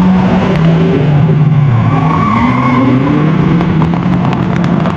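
AI-generated (TangoFlux text-to-audio) sound of cars speeding along a road: an engine drone that wavers and glides in pitch, over tyre noise, like various cars with different tyres racing past.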